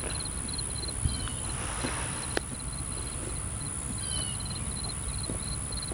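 Outdoor insect chorus: a steady high-pitched buzz, with a cricket chirping in an even pulse of about four to five chirps a second. Now and then a short falling bird chirp, and a single click about two and a half seconds in.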